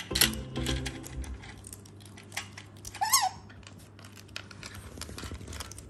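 Plastic sticks clicking and rattling in a cup-shaped treat toy as it is handled and nosed, with one short, high, rising-and-falling squeak from an Asian small-clawed otter about three seconds in.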